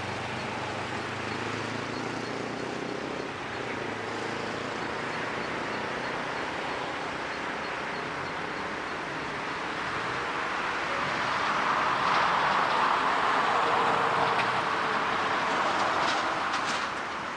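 Jet airliner engine noise, with faint gliding engine tones, building to a peak about two-thirds of the way through and then fading.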